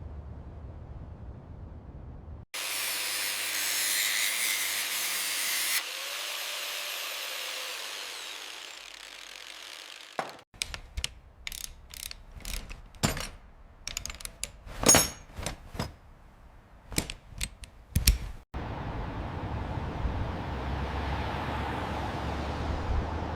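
Restoration work sounds in separate cuts: a few seconds of loud hissing, then a run of sharp metallic clicks and knocks like a ratchet and hand tools on metal parts, then a steady low rumble.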